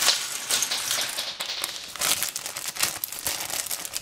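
Clear plastic parts bag crinkling and crackling as it is pulled open by hand.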